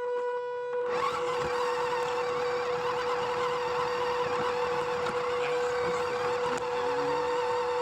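Small electric RC truck's motor and gear drive whirring, with a steady high whine under a rough, gritty running noise that drops out briefly and picks up again about a second in.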